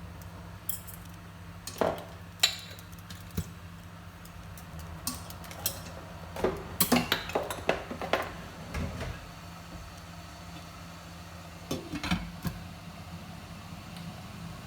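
Kitchen utensils clinking and knocking against a cooking pot, in scattered strokes with a busy cluster about halfway through and a few more near the end, over a steady low hum.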